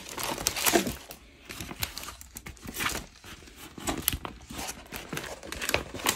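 Diamond painting canvas with its clear plastic cover film crinkling and crackling in irregular bursts as hands turn it over and roll it up.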